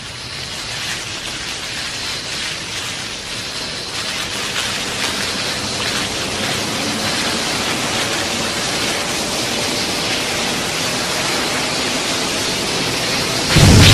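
Monster-film sound effect: a rushing hiss like heavy rain or a waterfall, with no clear pitch, slowly swelling in loudness. A loud, deep boom like an explosion breaks in at the very end.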